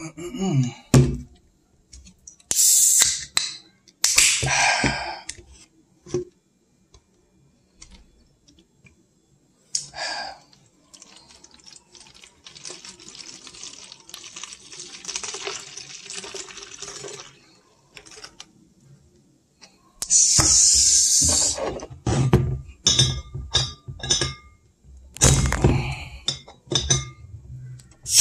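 Aluminium can of Four Loko handled, with a few short hissing bursts, then poured into a large plastic cup: a steady fizzing splash lasting several seconds. This is followed by loud clattering, clicks and knocks, and a bottle opener prying the cap off a glass bottle of Indio beer at the very end.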